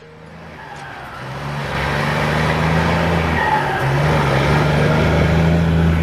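Scania 124G 400 truck approaching and driving past under power, its diesel engine note growing louder over the first two seconds. The engine runs at a steady pitch that steps up slightly about four seconds in.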